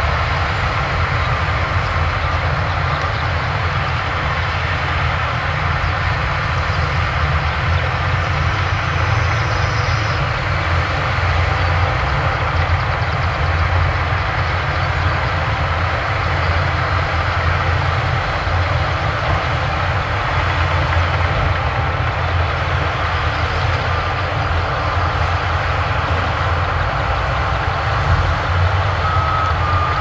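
Heavy diesel engines of bulldozers and dump trucks running steadily at earthmoving work. Near the end a reversing alarm beeps a few times.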